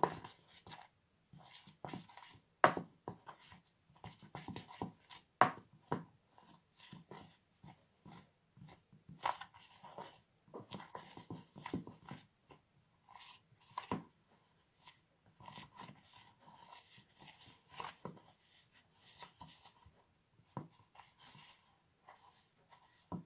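Metal utensil scraping and clicking irregularly against a plastic bowl while stirring white glue and cornstarch into a thick, crumbly paste for slime.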